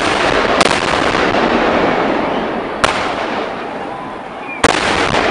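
Huge aerial firework crackers bursting with ear-piercing bangs: three sharp reports, about half a second in, near the middle and near the end, over a continuous rumble and crackle of further blasts.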